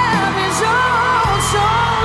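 A woman singing a melody with vibrato into a microphone over a backing track of sustained low notes.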